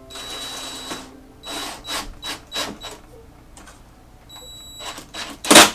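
Hand tool work on a metal part: a rasping stroke, then a run of short scraping strokes and a faint high whine, ending in one loud sharp knock near the end.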